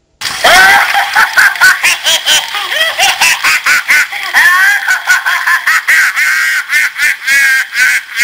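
Loud, high-pitched giggling laughter in quick repeated bursts, starting abruptly about a fifth of a second in after a moment of silence.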